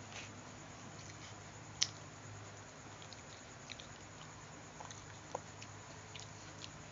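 A person chewing and biting food close to the microphone, with scattered small mouth clicks and smacks and a sharper click about two seconds in. A steady low hum runs underneath.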